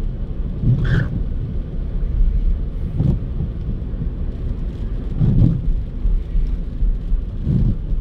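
Car interior while driving on a wet road: a steady low rumble from the engine and tyres, swelling briefly every couple of seconds.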